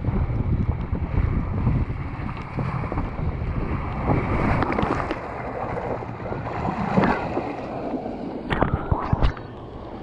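Water rushing and splashing along a water-slide flume under an inflatable ride tube, with wind buffeting the camera microphone. Near the end come a few sharp splashes and knocks as the tube runs out into the splash pool, and then it is quieter.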